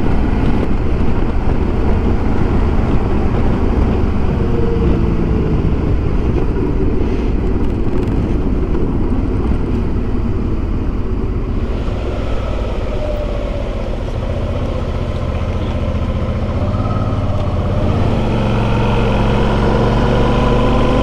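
Motorcycle riding on a mountain road: the engine running under way with wind rushing over the microphone, its note rising steadily over the last few seconds as it accelerates.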